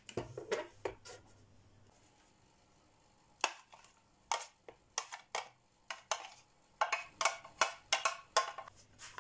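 Plastic press-down vegetable chopper dicing boiled eggs: a few sharp clicks in the first second as the lid is pushed through the cutting grid. After a pause comes a run of quick plastic taps and knocks, about two to three a second, as the diced egg is tipped out of the chopper's container into a bowl.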